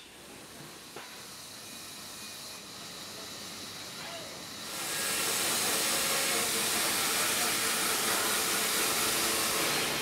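Low mill machinery background, then about halfway through a loud, steady hiss as a Wood-Mizer LT15 band sawmill's thin band blade cuts through a large log.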